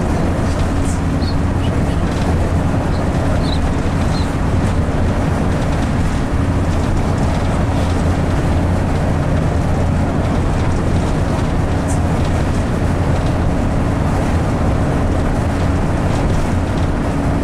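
Steady engine drone and road noise of a bus, heard from inside its passenger cabin, with a constant low hum and an unchanging tone running under the noise.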